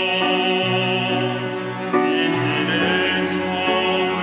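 Mixed choir of men's and women's voices singing a slow sacred anthem in Korean, on long held chords that change about two seconds in.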